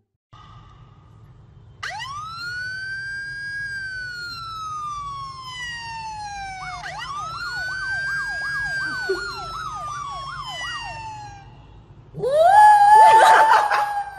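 A police-style siren sound, played from a phone, wails up and slowly falls away, then rises again with a fast warble. Near the end a small white poodle howls along, louder than the siren.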